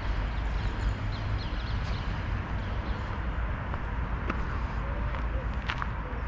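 Steady low wind rumble on the camera microphone, with a few faint bird chirps early on and scattered sharp clicks near the end.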